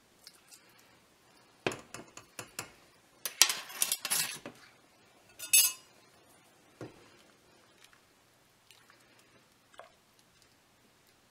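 A steel measuring spoon and other utensils clinking and clattering against a metal cooking pot. A run of sharp knocks comes in the first half, then a few light taps.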